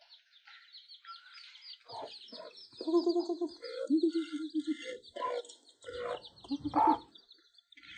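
A hen under a bamboo basket clucking in short repeated calls, loudest from about two to seven seconds in, over the steady high cheeping of her chicks.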